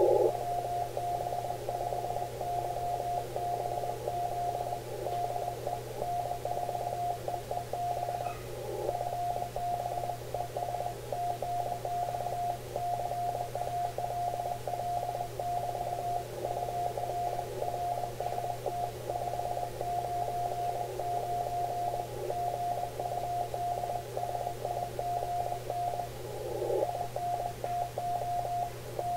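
Morse code (CW) received on an Icom IC-7300 transceiver: a steady beep near 700 Hz keyed on and off at about 20 words per minute, over hiss squeezed into the radio's narrow CW filter. The other station, N4EEB, is sending a reply to WB5YBZ with thanks for the call and an RST 599 signal report.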